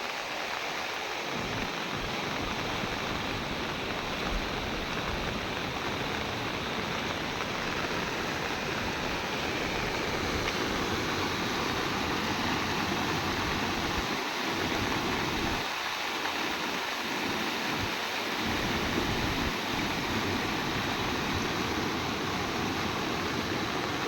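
Heavy rain pouring steadily, mixed with the rush of running floodwater, with a low rumble underneath that briefly drops away a few times.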